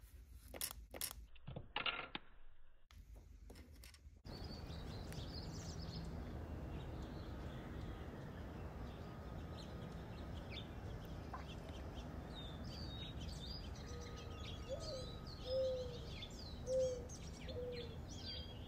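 Rustling and a few sharp clicks as a tiny ramen noodle packet is handled over a small bowl. About four seconds in, this gives way to a steady outdoor ambience with small birds chirping and, near the end, a run of four short, low bird calls.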